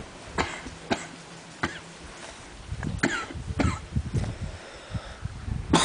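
A man snoring heavily: a low, rattling snore broken by several sharp, noisy snorts and gasps, the loudest near the end.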